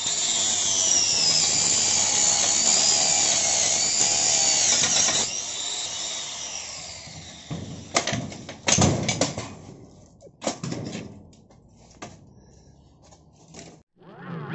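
Electric angle grinder running against a bicycle's steel frame, its whine sagging in pitch as it bites. It is switched off about five seconds in and spins down. A few sharp metallic knocks and rattles follow from the bike being handled.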